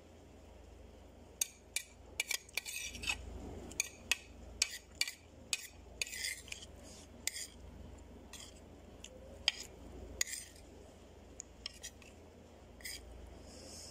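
Metal spoon clinking and scraping on a ceramic plate as rice is scooped up, a quick run of sharp clinks for most of the stretch, thinning to a few near the end.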